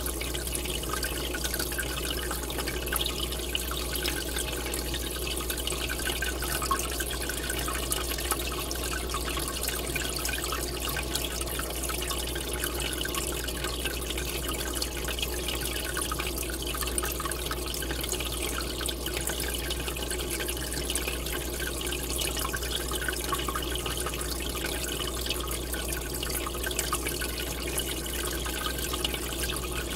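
Aquarium air bubbler sending a steady column of bubbles up through the water, a continuous bubbling and trickling water sound. A steady low hum runs underneath.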